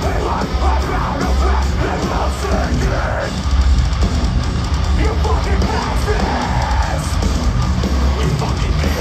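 Live metalcore band playing loud and heavy, with yelled vocals over distorted guitars, bass and drums, heard from within the audience.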